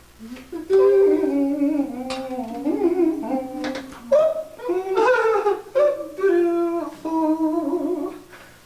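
A voice singing a tune in held notes that glide up and down, with short breaks between phrases.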